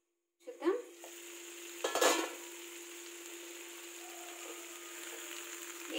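A stainless-steel pan lid is lifted off with a metallic clink about two seconds in. The egg curry gravy then sizzles and simmers steadily over medium flame, with a steady hum underneath.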